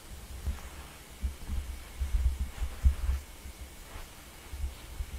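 Muffled low footsteps thudding at an uneven walking pace, over a faint steady hum.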